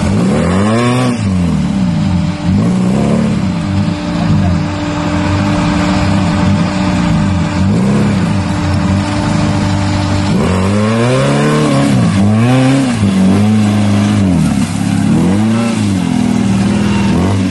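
Modified Suzuki Gypsy's engine revved again and again under load as it climbs out of a sandy trench, its pitch rising and falling with each burst of throttle. The revving comes thickest in the second half.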